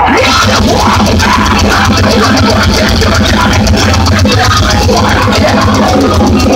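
Deathcore band playing live through a loud outdoor PA: distorted guitars, heavy bass and very fast drumming.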